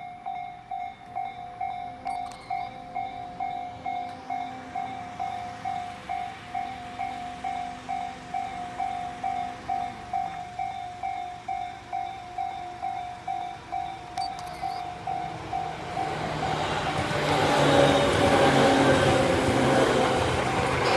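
Japanese railway level-crossing warning bell ringing steadily, about two strikes a second. From about 16 seconds in, a train passing through the crossing grows loud and mostly covers the bell.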